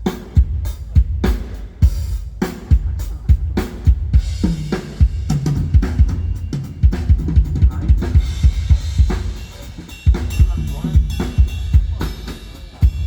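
Acoustic drum kit played in a steady beat during a sound check, with bass drum, snare and cymbal hits several times a second.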